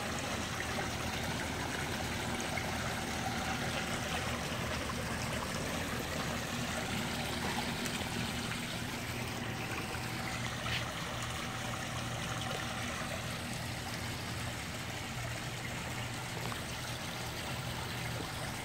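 Water trickling and splashing steadily down a small stacked-stone waterfall into a koi pond.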